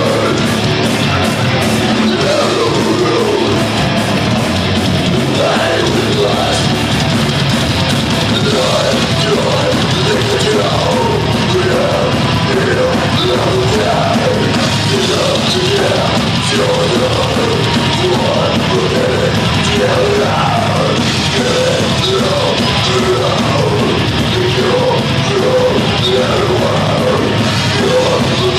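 Live heavy metal band playing: distorted electric guitars and drums under harsh yelled vocals, steady and loud throughout.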